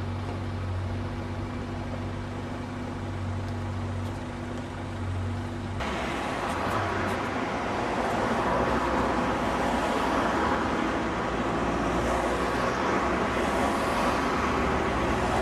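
Riding in a vehicle: a steady low engine hum, then about six seconds in an abrupt switch to a louder, even rushing rumble of travel noise.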